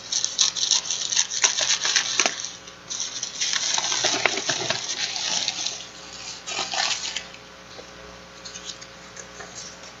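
Plastic bubble-lined mailer crinkling and rustling as it is cut open with scissors and handled, with scattered sharp snips and clicks; the crinkling dies down about seven seconds in.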